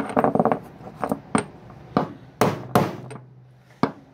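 Hammer tapping metal on metal to drive a new drum bearing into the hub of a washing machine drum's flange. There is a quick cluster of knocks at the start, then about half a dozen separate, uneven taps, some ringing briefly.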